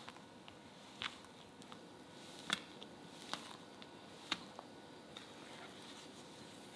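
Silicone spatula folding flour into thick cake batter in a glass bowl: soft squelching of the batter, with a handful of light, irregular clicks as the spatula meets the glass.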